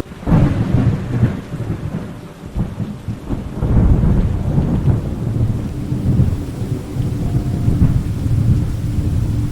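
Thunder over steady rain. It breaks in suddenly at the start, rolls on as a deep rumble, and swells again about three and a half seconds in.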